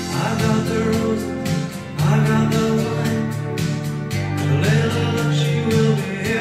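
A song with a singing voice and instruments playing back from a vinyl record on a Michell turntable.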